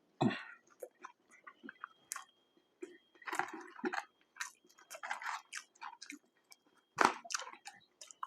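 Close-miked chewing of a mouthful of fast food, with irregular wet smacks and clicks of the mouth.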